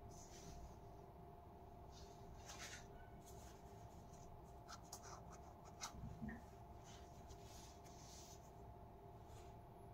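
Faint rustling and scratching of cotton-gloved hands handling a sneaker, rubbing over its mesh upper and rubber sole, with a couple of small ticks about six seconds in.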